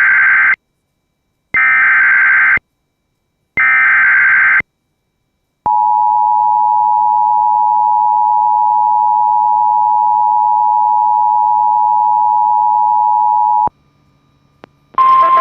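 Emergency Alert System signal: three one-second bursts of buzzy data tones, the SAME header that carries the warning's codes, then the steady two-tone EAS attention signal held for about eight seconds before it cuts off.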